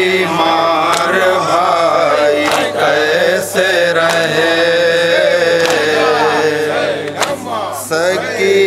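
Male voices chanting a noha, a Muharram lament, in long drawn-out melodic lines. Sharp slaps land now and then, from hands striking chests in matam.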